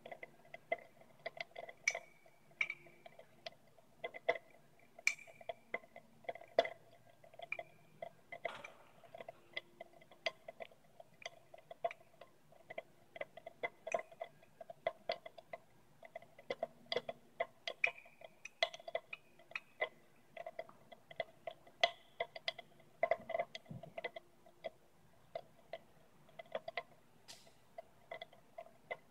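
Irregular crackling pops, several a second and some louder than others. They come from tiny explosive flashes where manganese heptoxide, formed from potassium permanganate in concentrated sulfuric acid, violently oxidizes the layer of ethanol floating above it.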